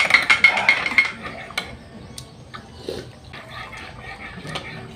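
Metal spoon stirring in a ceramic mug: a quick run of ringing clinks in the first second, then scattered lighter clinks of spoons against the mug and dishes.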